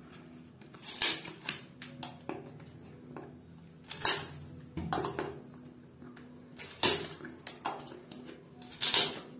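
Steel pincers gripping and levering at a piece of wood: irregular sharp metallic clicks and crunches, the loudest about four, seven and nine seconds in.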